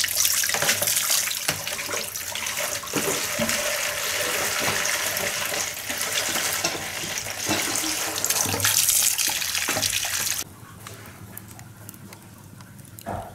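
Water running and splashing onto a concrete floor and into plastic basins as basins are tipped out and potatoes are rinsed. About ten seconds in, it cuts off abruptly to a much quieter background.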